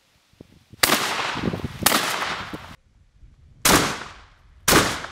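Four shotgun shots from a TOZ 66 12-gauge side-by-side double-barrel hunting shotgun, in two pairs about a second apart. Each shot has a long echoing tail.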